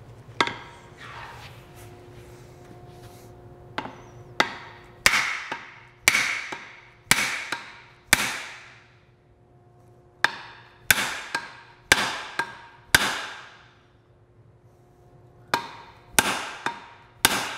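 Hammer blows on the butt end of a hickory axe handle whose wedged top rests on an anvil, driving a glued walnut wedge into the kerf and seating the axe head. About eighteen sharp strikes, each with a short ringing decay, come in three runs with pauses of about two seconds between them.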